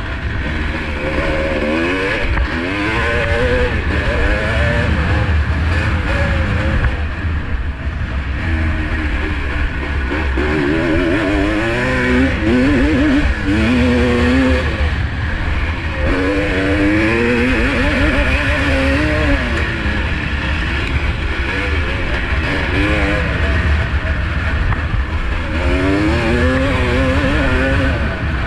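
Single-cylinder two-stroke motocross bike, a 1985 Honda CR250R, at full race pace: the engine revs climb and fall again and again as it accelerates and shifts gear, over a heavy low rumble.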